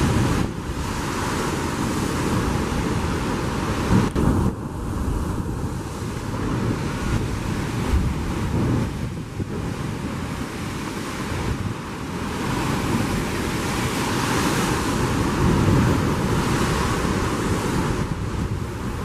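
Sea surf surging and breaking through the rock chasms and blowholes of a limestone coast, a steady rushing wash of water, with wind buffeting the microphone. A single sharp thump comes about four seconds in.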